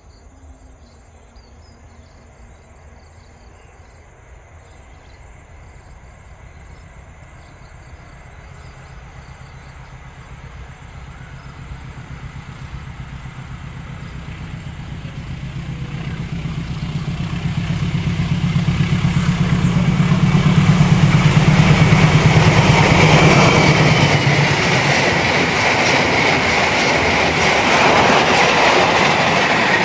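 The Sri Tanjung passenger train approaching and passing close by. The diesel locomotive's low engine hum swells and peaks around twenty seconds in. It is followed by the steady rush and rumble of the coaches' wheels on the rails.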